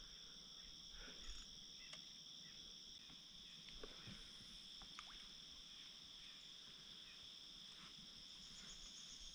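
Faint, steady high-pitched insect chorus, a continuous two-toned shrill drone, with a few faint ticks over it.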